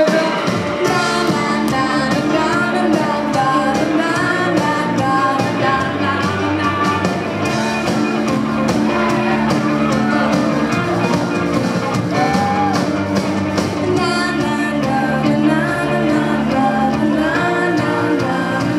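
A rock band playing live, heard from the crowd in a hall: a woman's lead vocal over drums, bass guitar and guitar, with the full band kicking in about half a second in.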